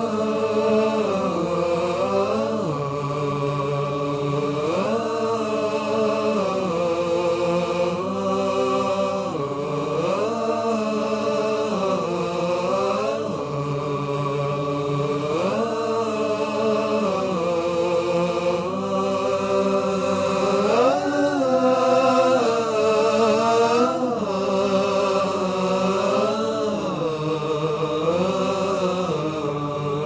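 Chanted vocal music over the closing credits: a voice holding long, wavering notes that rise and fall slowly in pitch, with no speech.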